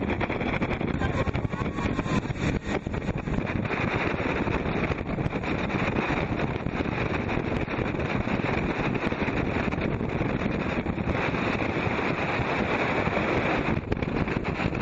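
Steady, loud rush of whitewater and a motorboat under way in river rapids, with wind buffeting the microphone aboard the boat.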